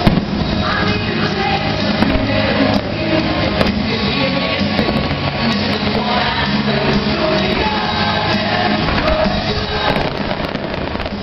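Music with a singing voice plays loudly while fireworks go off, with scattered bangs and crackles from the shells bursting.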